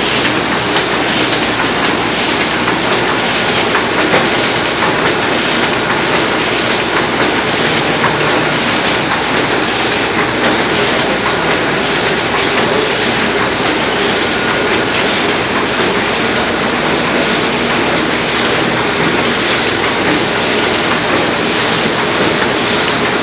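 Oliver 66 semi-automatic offset printing press running, a steady loud mechanical clatter of many fine repeated ticks.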